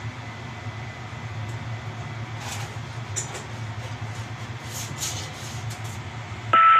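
A steady low hum with a few faint clinks, then loud chiming music with bell-like notes starts suddenly near the end.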